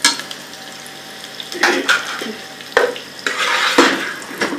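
Freshly added sliced onions frying in hot oil in a pan, sizzling steadily, as a spoon stirs them in several quick scraping strokes against the pan. This is the start of browning onions for a curry base.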